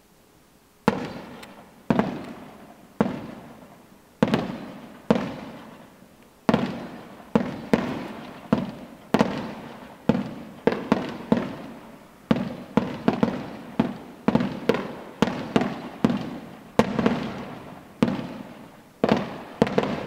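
Fireworks display: a series of sharp bangs from bursting shells, each followed by a rolling echo. After about a second of quiet they come roughly once a second, then faster and overlapping through the middle and late part.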